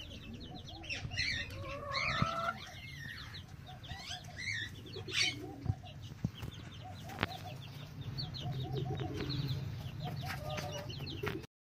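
Chickens clucking in runs of short low notes, with small birds chirping in quick high trills over them and a few sharp clicks.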